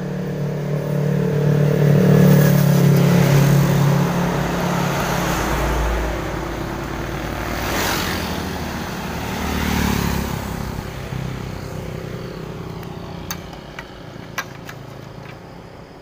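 Road traffic going past: an engine hums loudly for the first few seconds, then two more vehicles pass about eight and ten seconds in and the sound fades away. A few sharp clicks come near the end.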